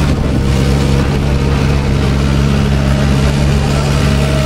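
Backhoe loader's diesel engine running steadily at a low, even pitch.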